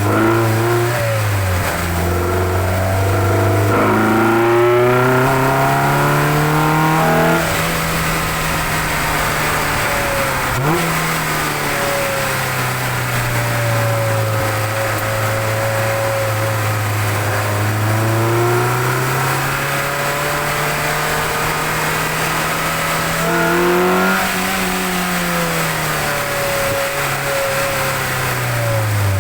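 Mazda MX-5 NC1's 2.0-litre MZR four-cylinder engine with aftermarket cams and a cold air intake, heard from under the bonnet with loud intake noise as the car is driven. The engine speed rises and falls several times, with a quick drop about a second and a half in and climbs around a quarter of the way in and again near the end.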